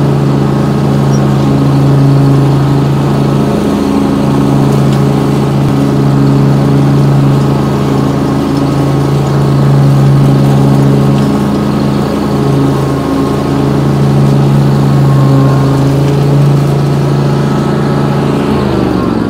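Honda GXV630 V-twin engine of a zero-turn riding mower running steadily at full throttle with the cutting deck's blades engaged. It starts winding down near the end.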